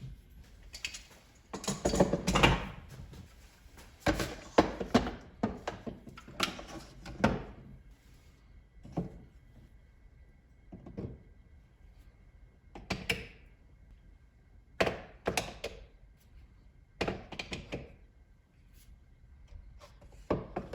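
Quick clamps being hung on a clamp holder, knocking and clattering against it in irregular bursts of thunks with short pauses between.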